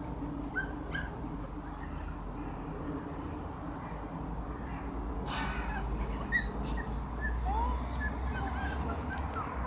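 Puppy giving scattered short, high whimpers and squeaks, one rising squeal about three-quarters of the way through. A brief rustle comes about halfway, over a steady low rumble.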